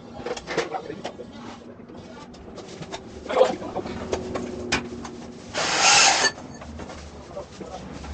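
Portable band saw cutting metal electrical conduit: the saw's motor hums steadily through the middle, with handling knocks, a sharp loud hit about three and a half seconds in, and a loud rasping burst of under a second near six seconds in as the blade goes through the tube.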